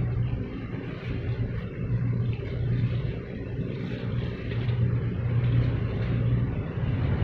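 Low, steady engine rumble from the departing container ship and the harbour craft working it, swelling and easing every second or two, over a faint hiss.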